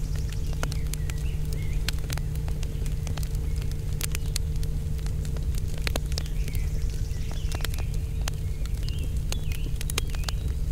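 Burning solid fuel crackling under a foil-covered pan, with irregular sharp pops and snaps as the last flames die down, over a steady low rumble.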